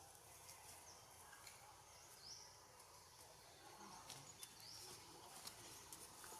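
Near silence: faint outdoor ambience with a few faint, short, high chirps and light ticks.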